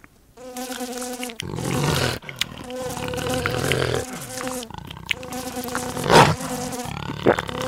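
Cartoon fly buzzing: a pitched buzz that comes and goes in stretches with short breaks, turning rougher for a couple of seconds and rising to a brief loud burst about six seconds in.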